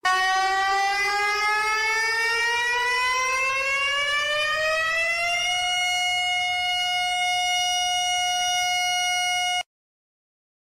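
Civil defense siren winding up: one strong tone that rises steadily in pitch for about five seconds, then holds a steady high tone and cuts off suddenly about a second before the end.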